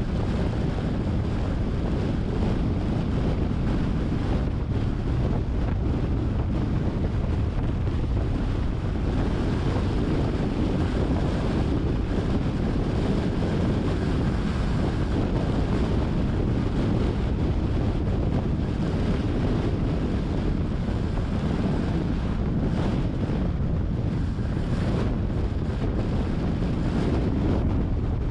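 Steady wind noise on the microphone of a moving car, with a low road rumble and no distinct events.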